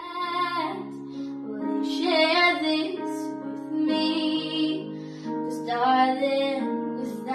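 Background song: a teenage girl singing long, wavering notes in several phrases over steady held instrumental chords.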